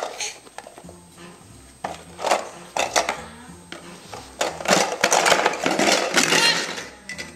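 Toy animals clattering as they are handled and knocked together: a few separate knocks, then a longer rattle of many pieces for a couple of seconds. A faint tune plays underneath.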